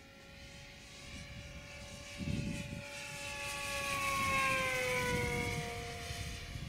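Electric-powered Quickie 500 RC plane's motor and propeller whining as it flies past, swelling to its loudest about two-thirds of the way through, then dropping in pitch as it passes and moves away.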